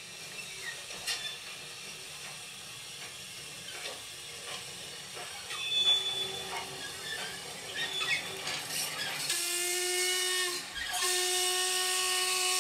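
Steam locomotive recording played from a vinyl record through small speakers. A few short high squeals and clanks give way near the end to two steam-whistle blasts with a hiss of steam. The first blast lasts about a second and a half, and the second runs on after a brief break.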